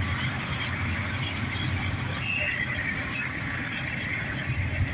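Norfolk Southern double-stack intermodal freight train rolling past close by: steel wheels on rail with a steady low rumble, and a brief high squeal about two seconds in.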